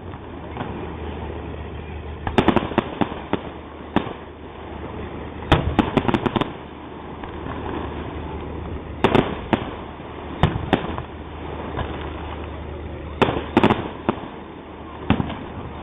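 Aerial fireworks bursting in clusters of sharp bangs every few seconds, with a steady low hum of background noise between the groups of bursts.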